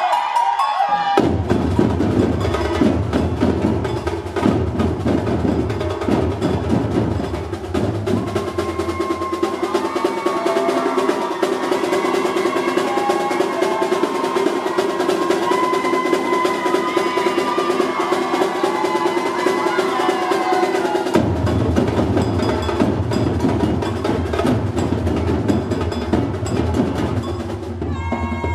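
Percussion ensemble drumming, with snare and bass drums, starting about a second in. The deep bass drums drop out for a stretch in the middle while the higher drums carry on, then come back in.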